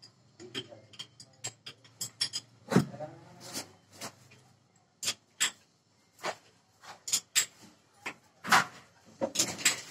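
Hammer striking a hand chisel held against a tiled wall, chipping at it: a series of sharp, irregular metallic knocks, roughly two a second, with a brief pause midway.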